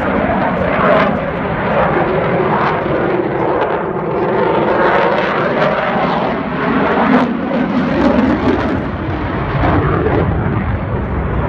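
Eurofighter Typhoon's twin EJ200 turbofan engines: loud, continuous jet noise as the fighter flies overhead, its pitch wavering and bending as it moves across the sky.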